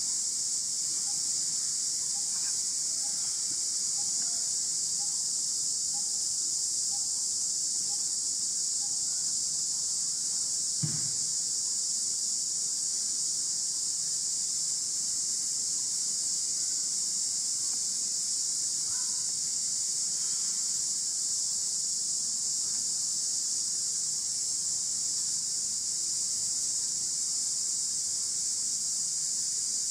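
Dense insect chorus, a steady high-pitched buzzing drone that does not let up. Faint short chirps repeat about twice a second for the first several seconds, and a single soft knock comes about eleven seconds in.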